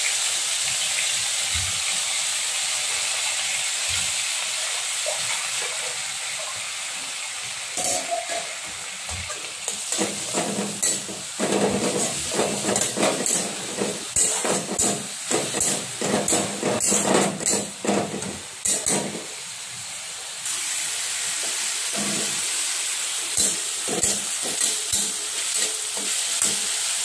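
Ginger, garlic and onion paste sizzling in hot oil in a kadai, stirred with a metal spatula that scrapes and knocks against the pan. The sizzle runs steadily at first; a busy spell of scraping fills the middle, then it settles back to sizzling with a few scrapes.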